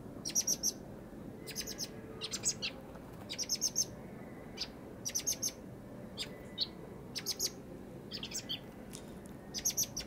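Young common blackbirds giving short, high chirping calls in quick runs of a few notes, about one run a second.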